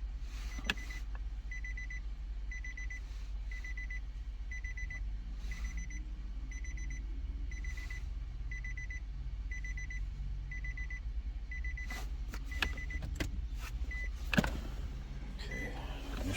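Electronic warning beeping: a short high beep repeating about once a second, over a steady low hum, with a few sharp clicks and knocks near the end.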